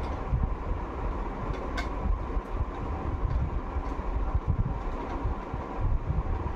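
Screwdriver backing a screw out of a wooden air-rifle stock, giving a few faint clicks over a steady low rumble.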